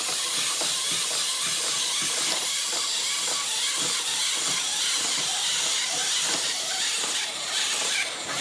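A steady, even hissing noise with no clear pitch, probably a celebration sound effect.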